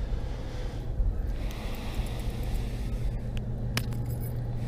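Steady low background rumble with a constant low hum, and two small clicks about three and a half seconds in.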